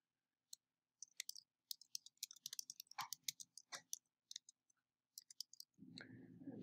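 Faint computer-keyboard typing: quick, irregular key clicks for about five seconds as a file name is typed.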